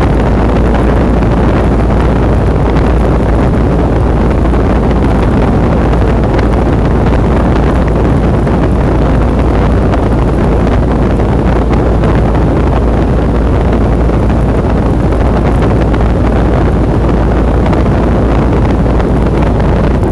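Lennox package heat pump running in cooling mode: a steady, loud rush of air from the outdoor fan over the compressor's hum, with a heavy low rumble of air buffeting the microphone.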